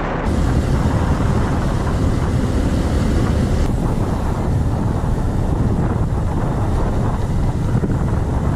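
Wind rumbling over the microphone of a camera riding on a moving motorcycle, with engine and road noise underneath. The sound shifts slightly about three and a half seconds in, at a cut to another stretch of road.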